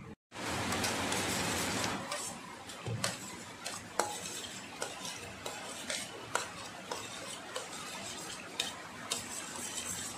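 A metal spoon stirring a milk mixture in a stainless steel mixing bowl, clinking and scraping against the bowl at irregular intervals. It opens with about two seconds of louder, even rushing noise.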